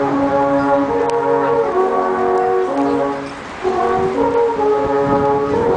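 A group of about ten alphorns playing a slow tune together in long held notes that step from pitch to pitch. The horns break off briefly a little past halfway, then come back in.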